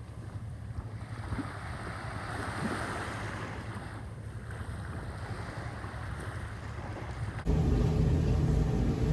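Steady outdoor rumble of wind and water noise over a low engine drone. About seven and a half seconds in it cuts abruptly to a louder, steadier engine hum.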